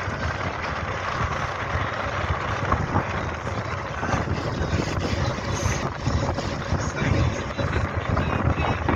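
Steady low rumble of a tour boat's engine under way, mixed with wind and water noise on the microphone.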